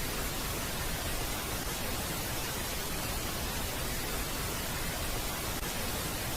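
Steady, unchanging white noise like the static of a CRT television tuned to a channel that doesn't exist: the sonified space recording of Pluto's moon Nyx.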